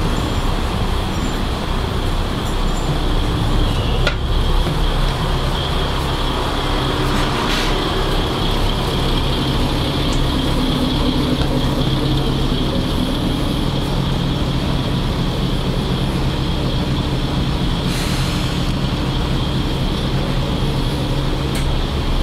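Diesel engine of a KiHa 20 railcar running steadily, heard from inside the passenger saloon, with a sharp click about four seconds in.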